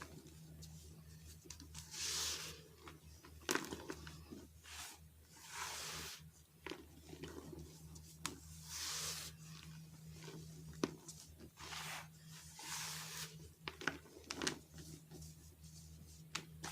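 Soft, dusty pressed baking soda being crushed and crumbled: gentle crumbling hisses come every few seconds, with small sharp crackles between them.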